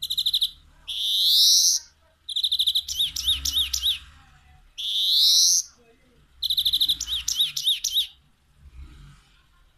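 European greenfinch singing: fast trilled phrases alternating with long, wheezy notes that rise in pitch. There are two wheezes, about a second in and about five seconds in, and the song stops about eight seconds in.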